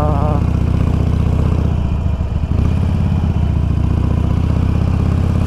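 Harley-Davidson Iron 883's air-cooled V-twin engine running steadily while riding, with a brief rougher patch about two seconds in.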